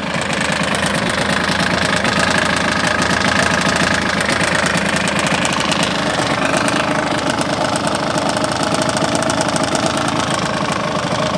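Yamaha DT125R's 125 cc single-cylinder two-stroke engine running steadily with a rapid mechanical knock and rattle, which the owner suspects is piston slap or a worn crankshaft bearing.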